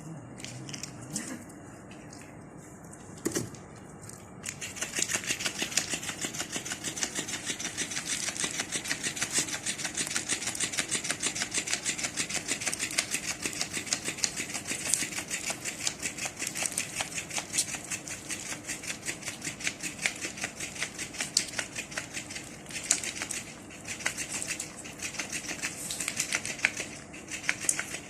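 Cats crunching dry food: a rapid, continuous run of small crunching clicks that starts about four seconds in.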